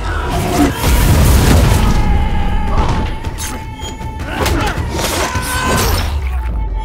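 Film fight soundtrack: dramatic score under sound effects of the fight, with deep booms and several heavy thuds of blows.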